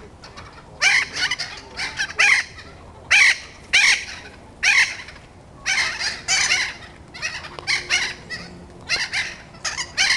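Thick-billed parrots calling: a rapid string of short squawks, about two or three a second, some overlapping.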